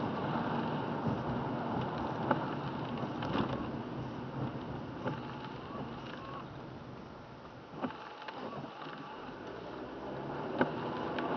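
Inside a car driving on a wet road in the rain, with steady tyre and engine noise and the windshield wipers sweeping. The noise fades as the car slows to a stop about two-thirds of the way through, then builds again as it pulls away, with a few sharp ticks scattered throughout.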